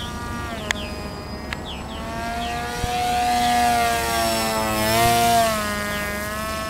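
Small RC plane's motor and propeller whining steadily as the flying wing flies; the pitch rises, then dips and swells louder about five seconds in as it swoops past low, then settles.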